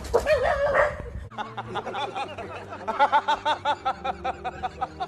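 A dog gives a brief wavering cry, then a man laughs heartily in a quick run of repeated 'ha-ha-ha's that starts about a second in.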